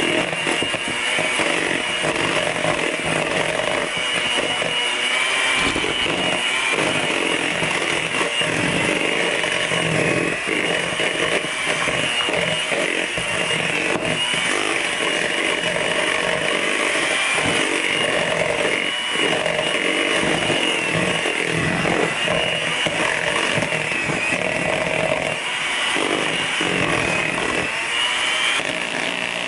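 Small electric hand mixer running steadily, its beaters churning a thick yogurt-and-pudding batter in a plastic bowl: a constant high motor whine with an uneven rattle of the beaters in the mix.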